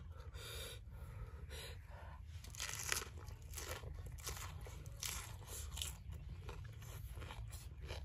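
Close-up chewing and crunching of raw prawns, in irregular crisp crunches with one loud bite about three seconds in.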